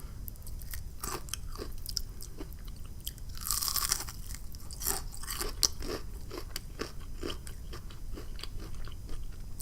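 Close-miked biting and chewing of crunchy, flour-battered fried food: a string of sharp crunches, densest about three and a half seconds in.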